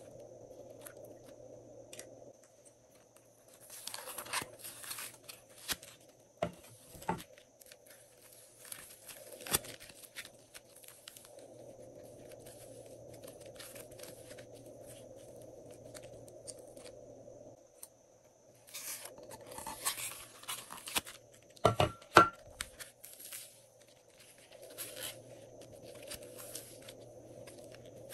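Soft clay slime being stretched, pulled and rolled between fingers, giving several bursts of sticky crackling and tearing, over a faint steady hum.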